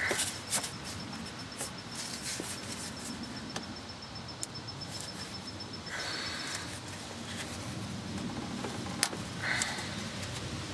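Light clicks and taps with short rustles from gloved hands working a plastic duckbill clip off a Ford fuel filter's line fitting. The clicks are scattered and irregular, and the louder one comes near the end.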